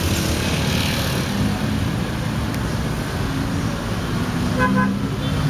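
Road traffic passing, a steady rumble of engines and tyres, with two short beeps of a vehicle horn near the end.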